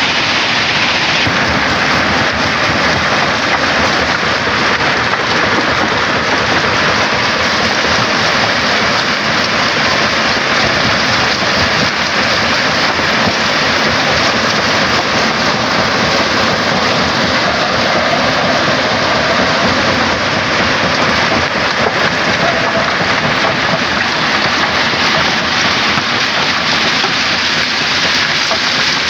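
Stone crusher machine running under load: a steady, dense rattle and crunch of rock being broken and falling through it.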